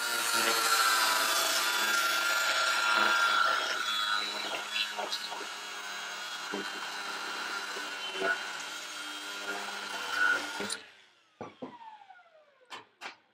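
A power tool cutting through the steel tube of an old mini bike frame, running steadily for about ten seconds, then switched off and winding down with a falling whine. A few sharp knocks follow near the end.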